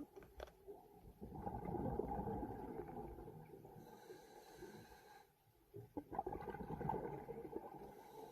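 Scuba diver breathing through a regulator underwater: two long exhalations of rumbling, gurgling bubbles, with quieter inhalation gaps between.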